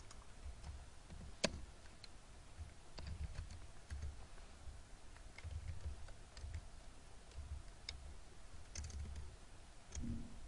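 Faint, irregular typing on a computer keyboard, with one sharper click about a second and a half in.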